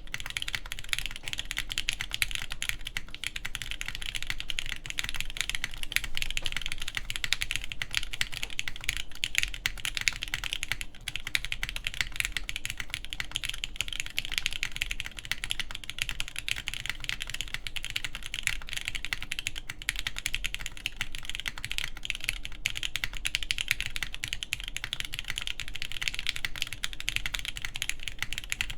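Continuous fast typing on a mechanical keyboard with lubed Everglide Tourmaline linear switches, GMK keycaps and a forged carbon fiber plate: a dense, steady stream of keystroke clacks.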